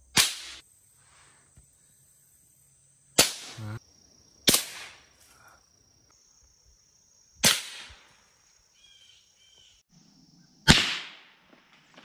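Five sharp rifle shots a few seconds apart, each a single crack with a short fading echo.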